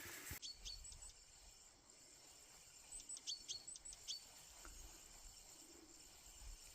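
Faint, high bird chirps: a couple of short calls about a second in, then a quick run of about five chirps some three seconds in.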